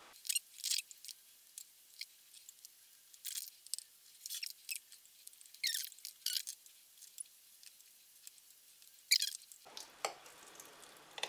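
Kitchen knife cutting a firm gelatin slab in a glass baking dish: faint, irregular short clicks and scrapes as the blade draws through the jelly and catches the glass bottom.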